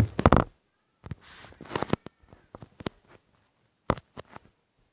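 Handling noise from a tablet being propped up and adjusted: a quick cluster of sharp knocks at the start, a soft rustle about a second in, and a few more knocks near the end.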